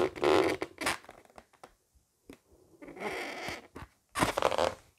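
Fine-point black Sharpie marker rubbing over the latex of an inflated balloon as it outlines a small shape. It comes in three short scratchy strokes: near the start, about three seconds in, and just after four seconds.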